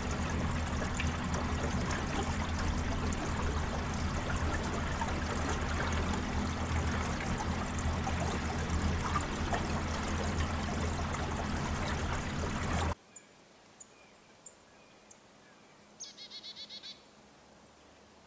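Steady rushing, water-like noise with a low steady hum under it, which cuts off abruptly about thirteen seconds in. After that it is quiet, with a few faint bird chirps and a short rapid trill of about six notes near the end.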